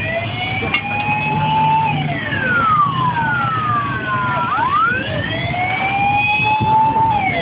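Fire engine siren sounding a slow wail, rising and falling in pitch about every five seconds, over a low traffic rumble.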